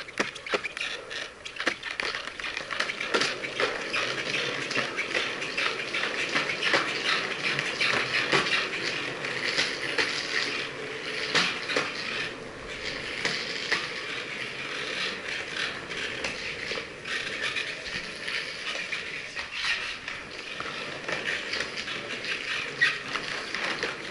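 Skateboard wheels rolling over pavement: a steady rolling hiss with a constant patter of small clicks and rattles.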